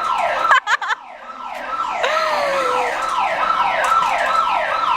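A siren sounding a fast, repeating falling wail, about two and a half sweeps a second. It breaks off briefly about half a second in, then starts again.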